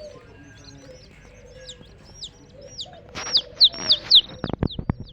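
Baby chicks peeping: many short high chirps that rise and then fall, coming thick and loudest a little past the middle. Near the end comes a quick run of sharp taps.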